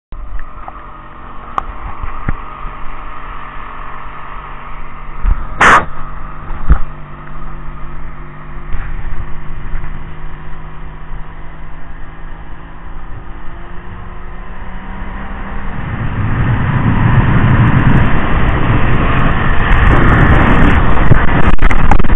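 Small motorboat's engine running at low speed with a steady hum, then louder from about two thirds of the way through as the boat speeds up, with rushing water and wind over the microphone. Two sharp knocks about six seconds in.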